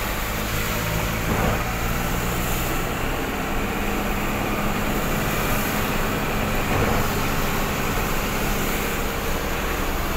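A vehicle's engine running steadily, heard from inside the cab, with a low hum under a steady rushing noise.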